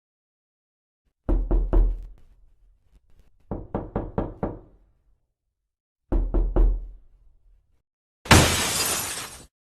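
Heavy knocking sound effect in three quick groups: three knocks, then five, then three. It ends with a loud crash about a second long.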